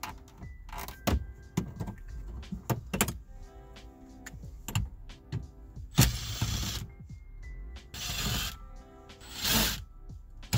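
Background music over a run of sharp clicks and knocks from the van's plastic centre-dash trim and radio being worked by hand. In the second half come three longer rasping sounds, as a stubby screwdriver backs out the radio's mounting screws.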